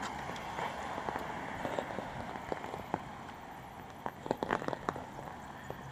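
Steady rain falling, with scattered nearby drops ticking sharply, most of them about four seconds in.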